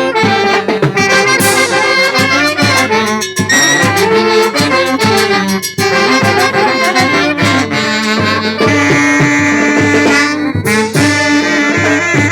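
Brass band playing loudly: massed horns carrying the tune over a steady, regular bass beat.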